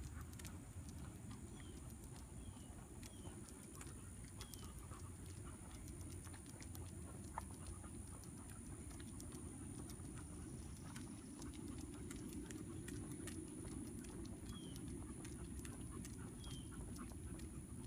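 Footsteps of a person and two dogs walking on a paved path, as faint irregular taps over a steady low rumble. A few short high bird chirps come in two groups, in the first few seconds and near the end.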